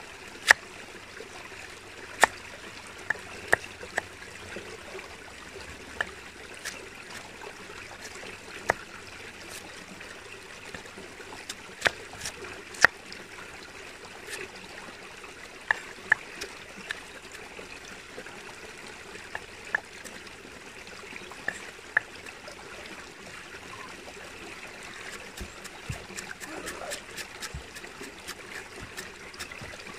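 Steady flow of running water from a small stream, with sharp clicks scattered irregularly through it.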